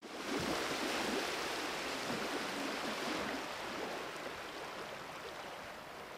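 Steady road and tyre noise inside a moving car's cabin: an even hiss with no engine tone, slowly getting quieter.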